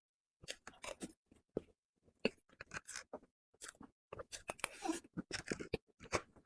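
Close-miked chewing and mouth sounds of someone eating: an irregular run of short wet smacks and clicks, busiest about two-thirds of the way through.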